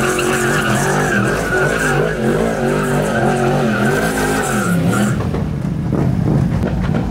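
Sport motorcycle doing a stationary burnout: the engine is held at high revs with its pitch wavering up and down, and the rear tyre squeals steadily against the pavement. Both stop about five seconds in.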